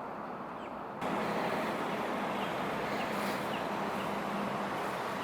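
Steady outdoor background noise with a faint low hum, and faint short rising chirps about once a second; the noise steps up in level about a second in.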